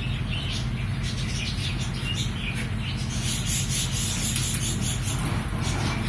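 Budgerigar chicks in a clay-pot nest making a few short, high chirps over a steady low hum.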